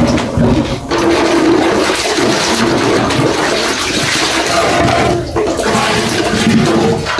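Continuous rushing, splashing water, as from water being poured or sloshed in a pot.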